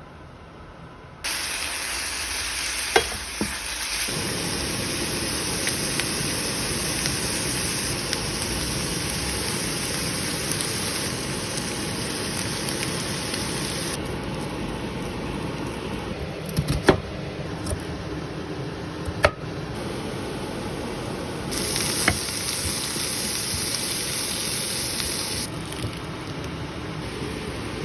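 Food sizzling in a frying pan, a steady hiss that shifts abruptly in level a few times, with a handful of sharp clicks, the loudest about 17 and 19 seconds in.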